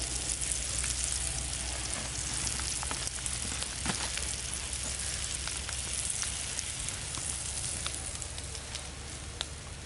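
Sausage links sizzling and spitting fat on a hot stone slab over a wood fire: a steady hiss scattered with small pops and crackles, easing slightly near the end as the sausages are lifted off.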